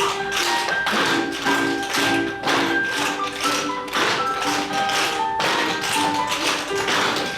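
Music with a melody over a quick rhythm of sharp taps, Spanish or flamenco in flavour.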